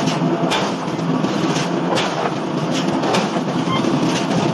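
Steady mechanical din of heavy forging machinery running, with light, irregular metallic clicks over it.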